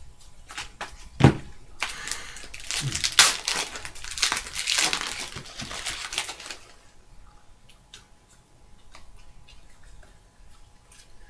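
A trading card pack's wrapper crinkling and tearing for several seconds as it is opened, after a single knock about a second in, with faint clicks of cards being handled near the end.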